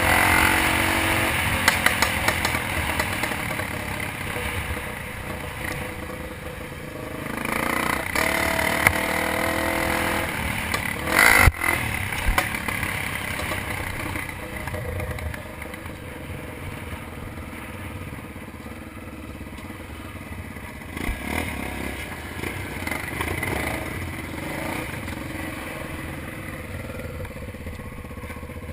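Dirt bike engine running and revving on a trail, with clattering and scraping. There is a sharp loud burst about eleven seconds in, and the engine then runs quieter for the rest.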